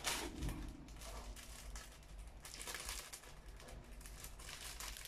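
Clear plastic bag crinkling and rustling in the hands, on and off.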